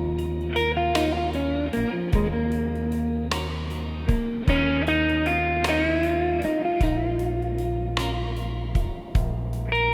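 Instrumental music: a guitar playing a melody over sustained bass chords that change every couple of seconds.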